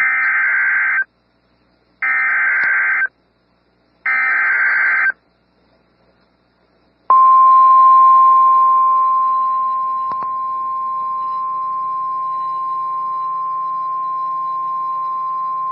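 Emergency Alert System SAME header: three one-second bursts of digital data tones about a second apart, which encode the warning, followed after a short pause by the long, steady, single-pitched weather radio warning alarm tone. The alarm is a little louder for its first couple of seconds and then holds steady.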